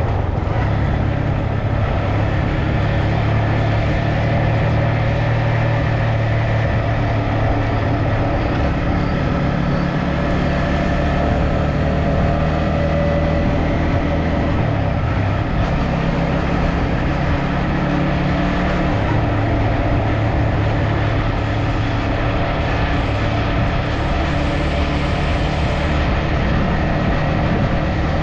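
A vehicle engine running steadily under way, with a constant rush of road noise and an engine hum whose pitch drifts slightly.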